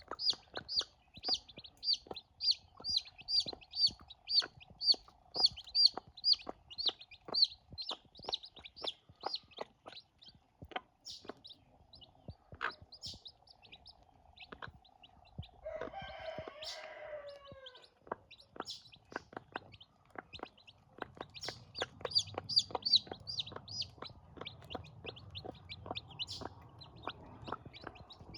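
Newborn chicks peeping rapidly, about three high peeps a second, with many sharp clicks scattered through. The peeping thins out midway and picks up again near the end. Around the middle comes one lower, longer call of about two seconds, falling in pitch at its end.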